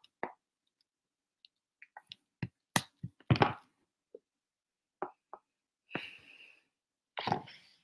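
Scattered small clicks, taps and soft knocks from a person handling things at a desk, with dead silence between them. The sharpest click comes a little under three seconds in.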